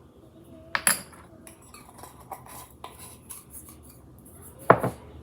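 Measuring spoon clinking against bowls and ingredient containers: a sharp double clink about a second in, light ticks and scrapes after it, and a louder knock near the end.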